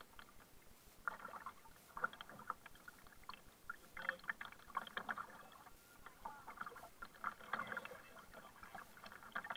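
Double-bladed kayak paddle strokes, dipping into the sea on alternate sides, with splashing and dripping from the blades about once a second.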